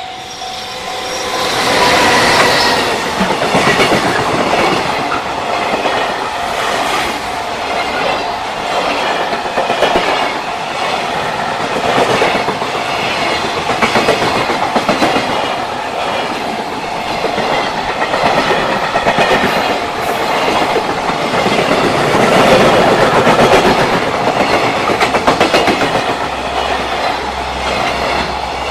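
JR Freight train passing close by at speed, its wagon wheels clattering over the rail joints in a running clickety-clack. The sound swells up in the first couple of seconds, then stays loud.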